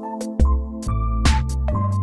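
Electronic background music with a steady beat: sustained synth chords over a bass line, with a drum hit about once a second.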